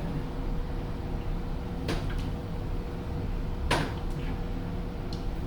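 Two short knocks of parts being handled while a fork and headset bearing assembly is fitted, the second one louder, over a steady low hum.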